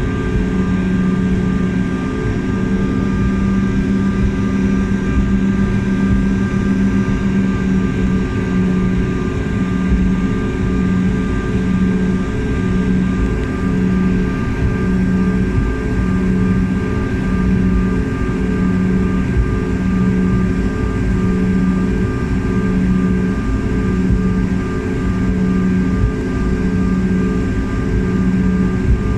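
Airliner cabin noise: a steady drone of engines and airflow with several held tones. About eight seconds in, the low hum starts to throb roughly once a second.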